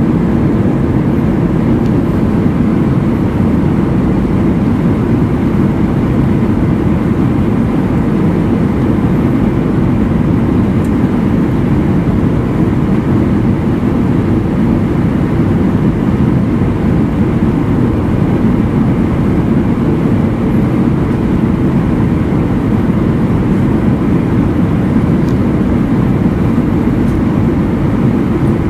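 Cabin noise of an Airbus A319-132 in flight, heard from a window seat beside the wing: its IAE V2500 turbofan engine and the airflow past the fuselage make a deep, even rumble that holds steady throughout.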